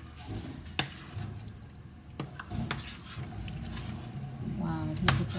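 Spoon stirring thick rice congee in a stainless steel saucepan, with a few sharp clinks of the utensil against the pot, the loudest near the end.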